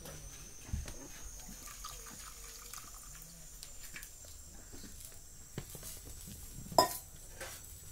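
Faint handling of steel kitchen vessels, with water poured from a small steel tumbler into a steel pot. One sharp metallic clink near the end.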